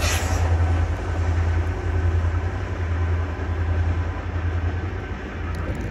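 Caltrain diesel passenger train passing through a station: the locomotive's engine gives a steady low drone over a constant hiss of wheel and rail noise.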